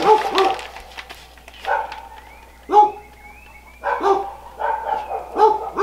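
A dog barking repeatedly: about half a dozen short barks at irregular intervals, with faint bird chirps in the gaps between them.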